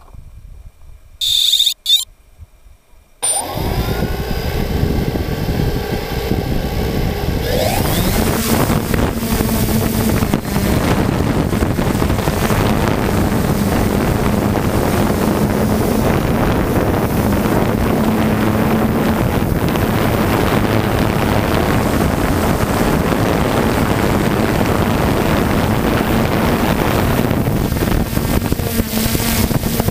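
3DR Solo quadcopter arming with a couple of short high beeps, then its motors starting suddenly about three seconds in and whining up in pitch as it lifts off. It then settles into a steady, loud whirring hum of the propellers in flight.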